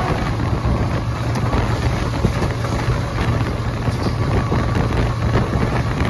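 GEU-40 diesel-electric locomotive working hard, a steady loud low engine drone mixed with the rumble and rattle of the train running on the track.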